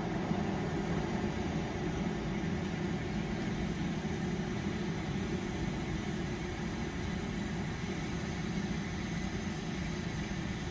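HTPB-bound ammonium perchlorate composite rocket propellant burning in a plastic cup: a steady, unbroken rushing noise from the flame.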